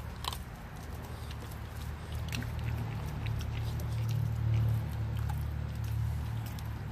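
Bulldogge puppy chewing and crunching a raw whole fish, with sharp clicks of teeth on flesh and bone scattered throughout, over a steady low hum.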